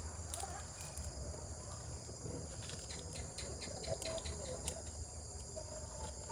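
Crickets and other insects chirring steadily in high, even tones, with scattered light clicks and rustles in the brush.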